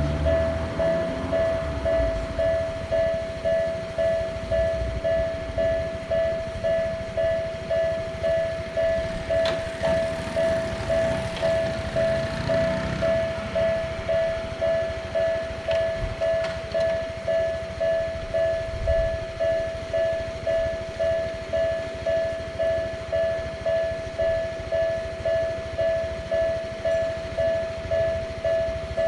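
Japanese railroad crossing warning bell ringing its steady 'kan-kan' at a little under two strokes a second. A passing train's rumble fades in the first second or so and swells again briefly around the middle.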